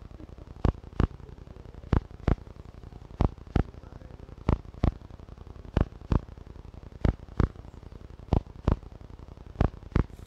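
Background soundtrack of a steady double thump, two beats about a third of a second apart, repeating very evenly about every 1.3 seconds like a slow heartbeat, over a faint hiss.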